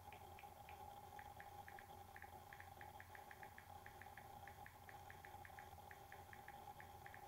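Faint, irregular light clicks, several a second, over a steady low hum: fingers tapping on a smartphone being operated.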